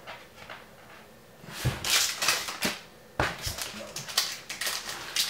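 Foil booster-pack wrapper crinkling and tearing as it is pulled open by hand, a run of loud crackles starting about a second and a half in, after a few soft rustles of cards being handled.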